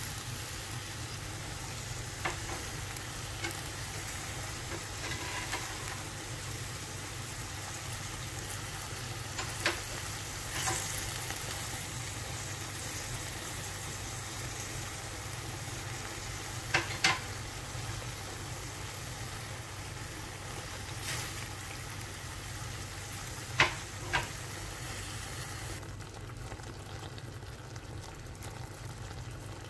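Paneer, onion and capsicum sizzling in a metal pan as they are stirred, with a few sharp clicks and a steady low hum underneath.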